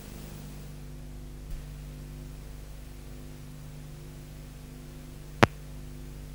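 Steady electrical hum with a faint hiss, and one sharp click about five seconds in.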